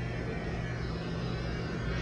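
Steady low hum over an even background hiss, with no distinct events.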